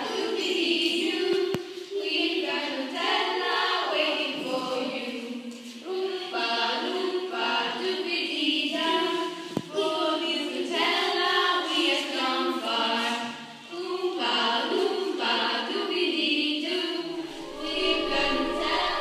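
Music with a group of voices singing together, choir-like, in steady phrases.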